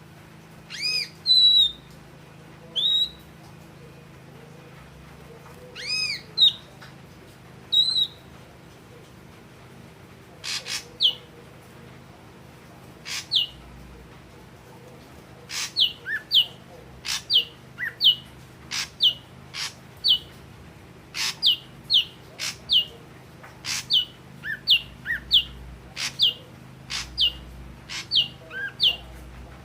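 Ashy drongo calling: a few separate calls with notes that rise and fall in the first eight seconds, then from about ten seconds in a quick run of short, sharp falling whistles, about two a second, some followed by a lower note. A faint steady low hum lies underneath.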